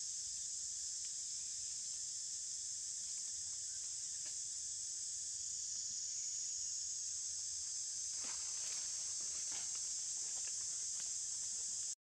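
Steady high-pitched drone of an insect chorus in the forest canopy, with a few faint rustles or ticks of branches about two-thirds of the way through.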